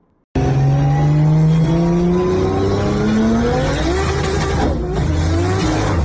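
Engine of a stripped-out car revving hard under acceleration, heard from inside the cabin; it starts abruptly, its pitch climbs steadily for about four seconds, drops at a gear change, then climbs again.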